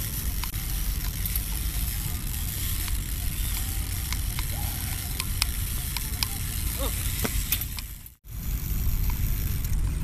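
BMX bike rolling on concrete paving, with wind rumbling on a close microphone and scattered light clicks from the bike. The sound drops out for a moment about eight seconds in, then picks up again.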